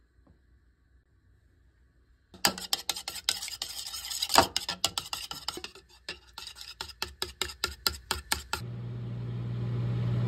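Kitchen clatter of dishes and cutlery: a run of sharp clinks and knocks starting a couple of seconds in, with a quick series of taps toward the end. A steady low hum starts near the end.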